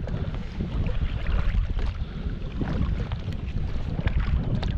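Kayak paddle strokes splashing in shallow marsh water, with dry cattail reeds rustling against the grass-covered kayak, over wind rumbling on the microphone.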